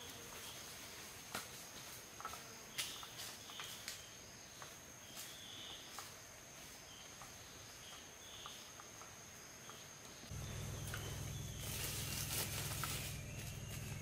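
Tropical rainforest ambience: an insect holds one steady high-pitched note, with scattered light clicks and snaps and a few short chirps. About ten seconds in a low steady rumble comes in, and near the end footsteps rustle through leaf litter.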